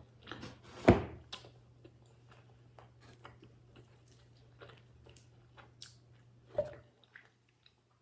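Eating sounds: a person chewing pizza in small wet clicks, with a sharp knock about a second in and another near the end.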